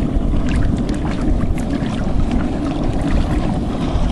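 Twin-hull ski boat running on the water: a steady low rumble with wind on the microphone and scattered sharp knocks and rattles as the boat shakes.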